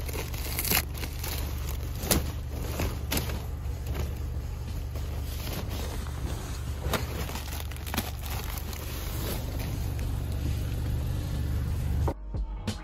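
Car in motion heard from inside the cabin: a steady low road rumble with scattered sharp clicks, cutting off suddenly near the end.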